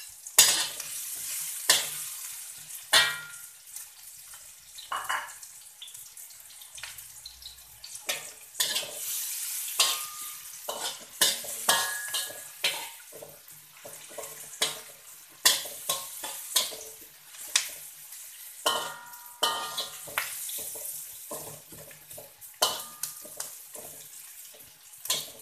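Dried anchovies, shallots and garlic sizzling in hot oil in a metal wok, with a spatula scraping and clattering irregularly against the wok as they are stirred; some strikes leave the wok ringing briefly.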